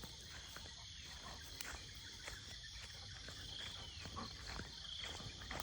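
Faint, steady chorus of insects, a high even drone, with light scattered ticks.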